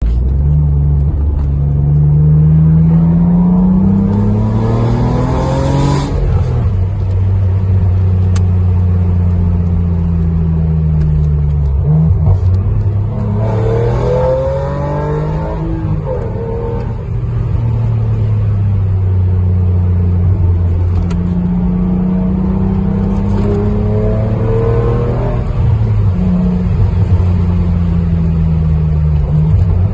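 BMW Z4 3.0i's 3.0-litre straight-six engine pulling hard through the gears: its note climbs steadily in pitch and drops sharply at each upshift, about six seconds in and again near the end. In between, the revs sink slowly for a few seconds as it comes off the throttle before climbing again.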